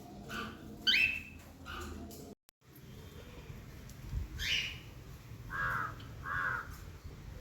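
Pet parrots giving a handful of short, sharp calls, some sliding down in pitch, with a brief dropout in the sound about two and a half seconds in.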